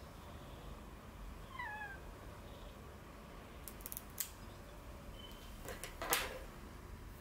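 A cat gives one short meow with a wavering pitch about a second and a half in, complaining at having its claws trimmed. A few sharp clicks of pet nail clippers follow around four seconds in, and a louder sharp click comes near six seconds.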